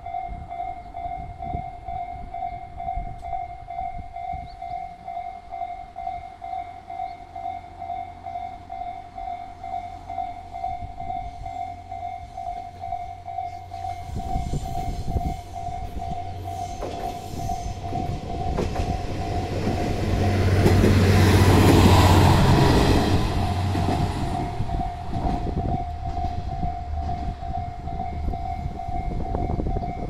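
Level-crossing warning bell ringing in a fast, steady ding-ding. A train runs past the crossing: its rumble and rattle build from about halfway, are loudest about two-thirds of the way in, then fade.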